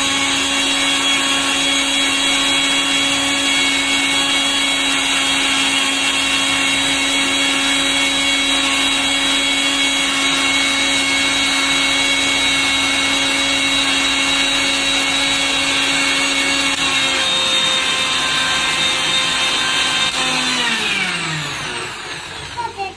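Electric mixer grinder blending apple pieces in its jar, the motor running at a loud, steady whine. Near the end it is switched off and the motor winds down, its pitch falling.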